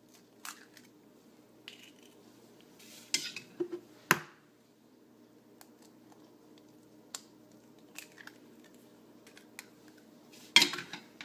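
Eggs being cracked and opened into a bowl: sharp cracks of shell, the clearest about three and four seconds in and the loudest near the end, with a few small clicks and taps between.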